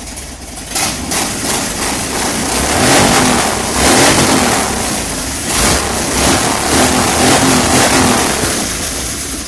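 Loud motor vehicle engine revving. The noise swells about a second in, stays loud for several seconds and eases off near the end.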